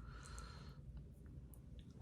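Faint mouth sounds of someone eating noodles: a short soft hiss in the first second and a few small clicks.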